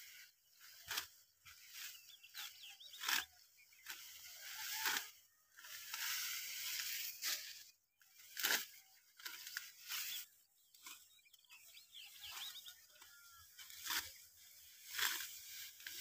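Ripe, dry wheat stalks being cut by hand with a sickle close to the ground: a crisp tearing crunch with each stroke, coming irregularly about once a second, with the rustle of the cut stalks being gathered between strokes.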